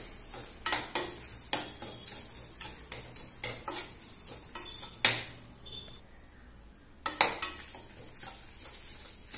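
Metal spoon scraping and knocking against a metal kadai while stirring grated coconut, roasted toor dal and dried red chillies, about one or two knocks a second. The stirring stops for a moment about five seconds in, after one sharper knock, and then starts again.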